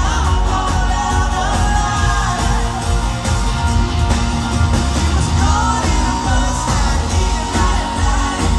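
Live pop-rock band playing, with a male lead singer over loud bass, guitars and drums.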